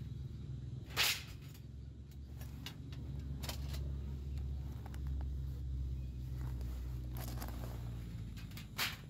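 Thin metal plates of a folding fire stand clinking and clattering as they are slid out of a fabric pouch and laid on a mat, with a sharp clink about a second in and another near the end, and a few lighter ticks between. A low steady rumble lies underneath, louder in the middle.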